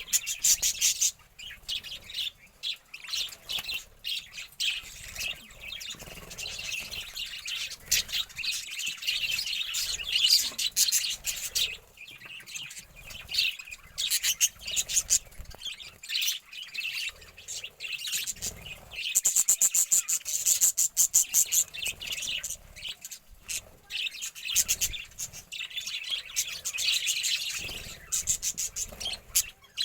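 Budgerigars chirping and chattering continuously in quick, high twittering, with a louder run of chirps about two-thirds of the way through.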